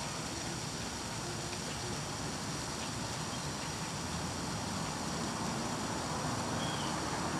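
Steady background hiss and low rumble with no distinct event, and a faint short high chirp near the end.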